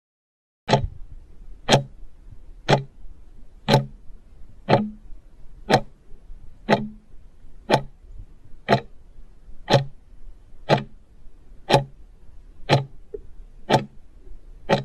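Clock-tick sound effect of a quiz countdown timer, one sharp tick a second, about fourteen ticks, starting just under a second in after dead silence.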